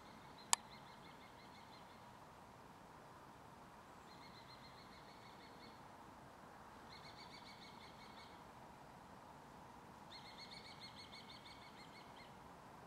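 A small animal's high, rapidly pulsed trill, repeated in four bouts of one to two seconds each, over faint background hiss. A single sharp click comes about half a second in.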